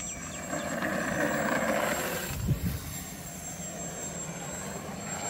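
Radio-controlled aerobatic model airplane's propeller motor throttling up for a takeoff run, loudest for about two seconds. A dull thump comes about two and a half seconds in, then a steadier, quieter drone as the plane climbs away.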